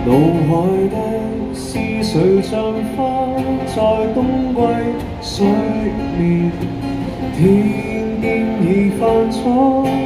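Acoustic guitar strumming chords with a voice singing a gliding melody over it.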